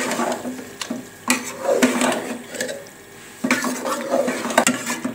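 A spoon stirring and scraping a thick mash of aubergine and potato in a steel pot, with several sharp clinks of the spoon against the pot's sides.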